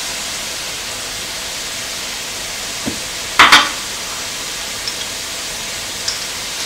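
Ground beef and onion sizzling steadily in a cast-iron skillet, with a short, loud double knock about three and a half seconds in and a few faint clicks.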